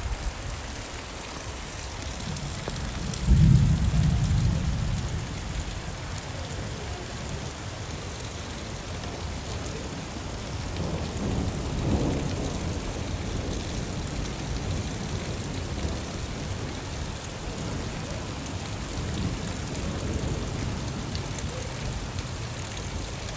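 Steady rain falling, with a sudden loud rumble of thunder about three seconds in that fades over a couple of seconds, and a softer rumble of thunder around the middle.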